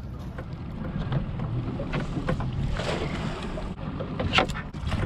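Boat's outboard motor idling, with wind on the microphone and water against the hull. A sharp knock comes about four and a half seconds in.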